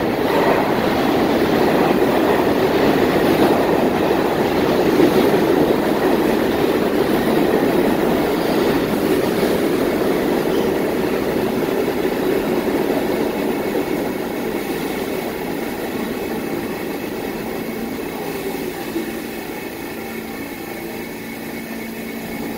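New York City subway train running into the station, a loud steady rumble of wheels on rail that fades as the train slows, leaving a lower steady hum near the end.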